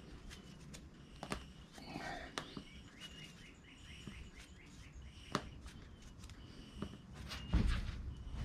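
Small birds chirping and twittering in quick repeated notes, with a few sharp clicks and knocks and a heavier low thump near the end.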